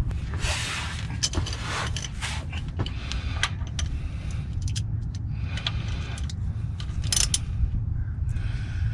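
Hand tools working on metal: irregular clicks, clinks and short scrapes as the screw on a transmission gear selector rod is worked loose, over a steady low hum.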